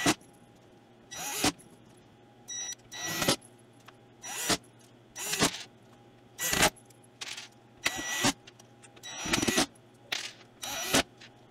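Electric screwdriver running in short bursts about once a second as it drives in the back-panel screws.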